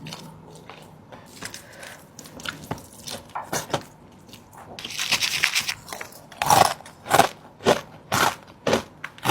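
Close-miked chewing of crunchy food: a dense run of crunching about five seconds in, then loud separate crunches roughly twice a second.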